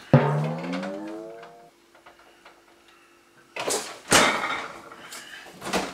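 Refrigerator door opened with a long rising creak, then a faint steady hum. About three and a half seconds in, a knock and a rustle as the door is shut.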